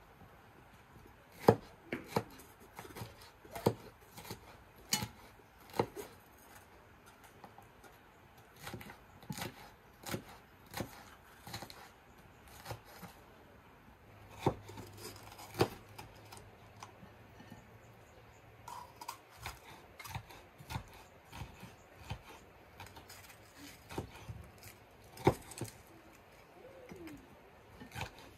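Kitchen knives cutting vegetables on wooden cutting boards: irregular sharp knocks of the blade striking the board, the loudest about a second and a half in and again near the end.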